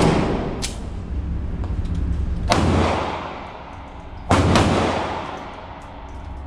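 Pistol shots on an indoor range, each crack trailing off in a long echo. A sharp crack at the start and a thinner one just after, then two loud shots about two seconds apart, over a steady low hum.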